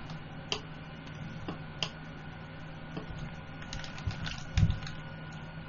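Scattered clicks of a computer mouse and keyboard, with a cluster of them and a louder low thump about four and a half seconds in, over a steady low hum.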